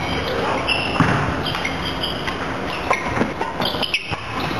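Badminton rally on a wooden court: several sharp racket strikes on the shuttlecock and short high squeaks of shoes on the floor, over the constant din of a busy sports hall.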